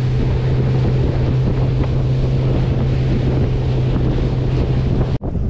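Motorboat running at speed on open sea: a steady engine drone under heavy wind noise on the microphone and the rush of wake and spray. All of it cuts off abruptly about five seconds in.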